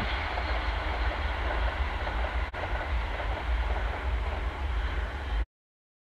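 Passenger train passing close by, a steady rumbling, rushing noise that cuts off suddenly about five and a half seconds in.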